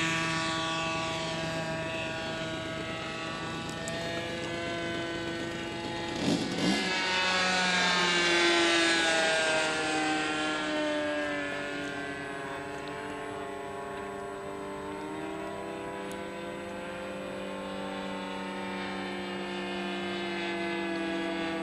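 Supertigre G90 two-stroke glow engine of a radio-controlled F-14 model plane running in flight after lift-off, its note wavering up and down, with a steep drop in pitch about six seconds in as it passes close. The owner says this engine will not run steadily.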